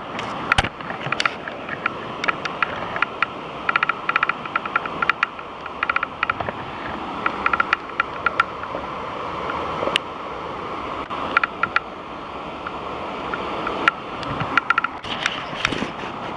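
Waterfall rushing as a steady roar of falling water. Over it, clusters of sharp, rapidly repeated high clicks or chirps come and go throughout.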